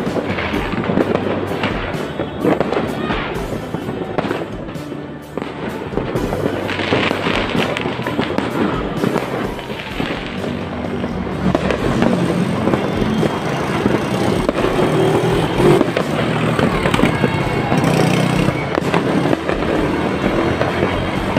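Fireworks and firecrackers going off in rapid, continuous crackling and popping, densest in the first half, with music playing underneath.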